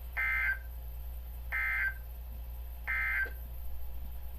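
Emergency Alert System SAME digital data: three short, buzzy bursts about 1.4 seconds apart, the end-of-message code that closes a broadcast alert.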